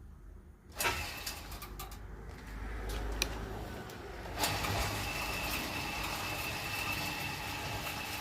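Backhoe engine starting about a second in, then running steadily with a low rumble. A steady high whine joins it at about four and a half seconds.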